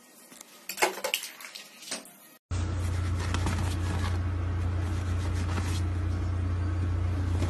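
A few light knocks and clicks, then from about two and a half seconds in a loud, steady low hum with a hiss over it.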